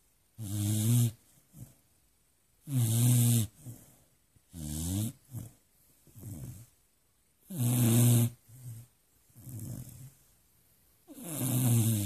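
Beagle snoring: five loud snores, each about a second long, come every two to four seconds, with softer breaths between them.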